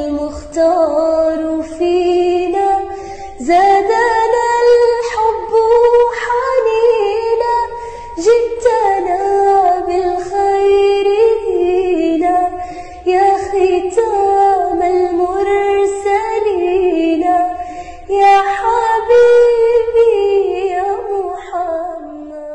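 A woman's voice singing an Arabic Islamic nasheed in praise of the Prophet Muhammad, in long melodic phrases with short breaks between them, fading out near the end.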